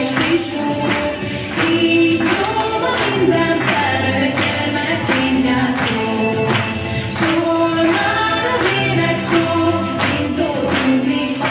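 Group of voices singing a song together over backing music with a steady beat.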